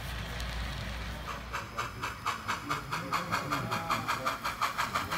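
HO-scale New York Central steam locomotive model's sound unit chuffing steadily, about three chuffs a second with a hiss. The chuffing starts a little over a second in, after a low, steady running rumble.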